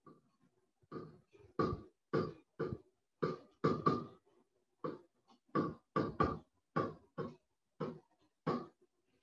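Pen strokes on a writing surface as numbers are written by hand: a string of about fifteen short scratches, roughly one per digit or dash, with brief gaps between them.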